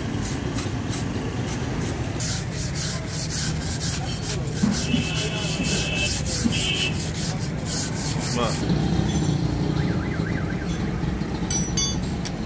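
A flat metal scraper drawn in repeated strokes, about two a second, along the rusty leaves of a van leaf spring, scraping off rust, with a brief squeal in the middle of the run. The scraping stops about two-thirds of the way through, and a few metal clinks of spanners follow near the end over a steady low hum.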